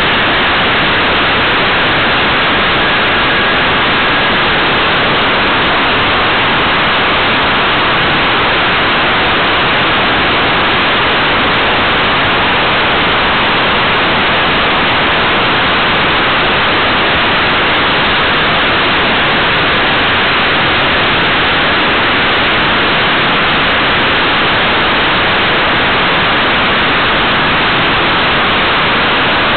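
Steady rushing noise of air streaming past a camera mounted on a radio-controlled model aircraft in flight, unchanged through banks and turns.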